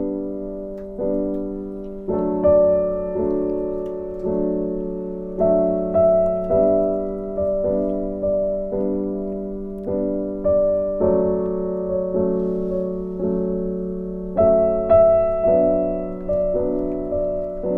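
Background piano music: gentle, evenly paced notes struck about once or twice a second, each ringing and fading.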